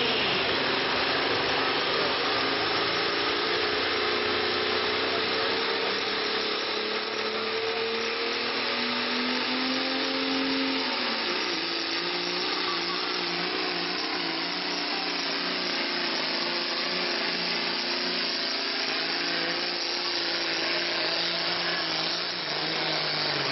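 Turbocharged diesel pulling-tractor engine running flat out as it drags a weight-transfer sled, a loud continuous engine noise whose pitch climbs through the first ten seconds, then drops and wavers.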